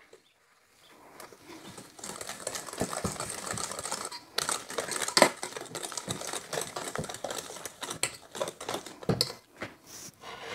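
Wire whisk beating a thin batter in a stainless steel bowl: a quick, irregular run of light clicks and scrapes of the wires against the metal, starting about a second in.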